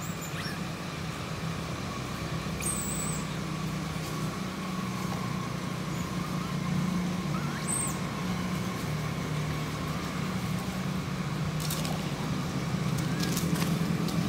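Steady low drone of a motor vehicle's engine running, with a faint steady high tone above it and a few brief high chirps.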